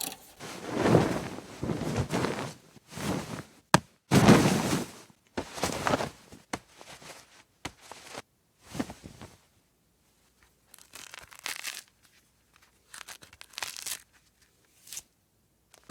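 Foley sound effects: a string of about a dozen short rustling, scraping and knocking sounds with gaps between them. The loudest comes about four seconds in, just after one sharp click, and the later ones are quieter and sparser.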